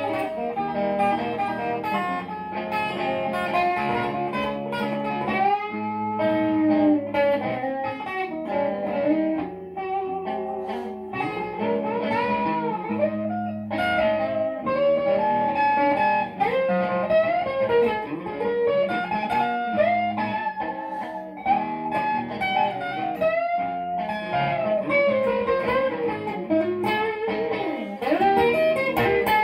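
Stratocaster-style electric guitar playing a bluesy improvised lead solo, single-note lines with frequent string bends and vibrato, over steady low held notes.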